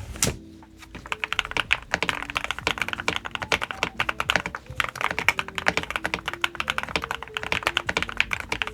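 Fast, continuous typing on a computer keyboard: dense clicking keystrokes. One sharp keystroke comes right at the start, and after a short pause the steady typing runs from about a second in. A faint melody plays underneath.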